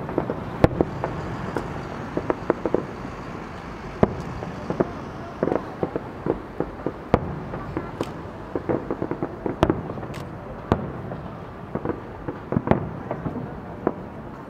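Aerial fireworks shells bursting in an irregular string of sharp bangs and pops, some bunched in quick clusters, over steady background noise.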